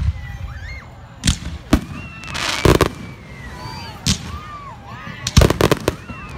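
Fireworks going off close by: single sharp bangs a second or so apart, a longer noisy burst about two and a half seconds in, and a quick run of several bangs a little past five seconds in.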